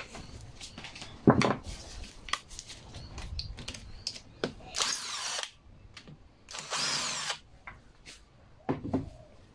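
Cordless drill-driver with a T20 Torx bit running in two short bursts of under a second each, loosening the two screws that mount the carburetor on a Ryobi RLT26CDSN string trimmer. Before them come a sharp knock and light clicks of the tool being handled against the engine.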